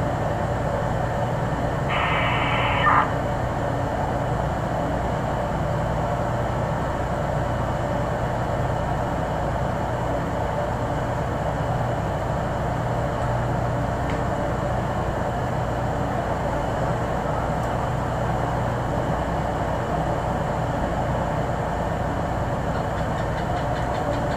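Steady low drone of running heavy machinery at a fuel jetty, an even hum with no change in pace. About two seconds in, a brief higher squawk stands out over it.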